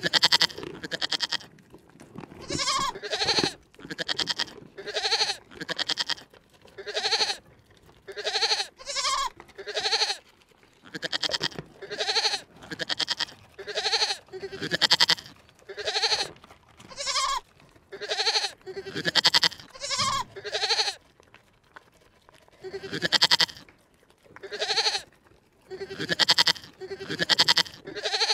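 An animal's short calls repeated about once a second, each one rising and then falling in pitch. There is a brief pause about two-thirds of the way through.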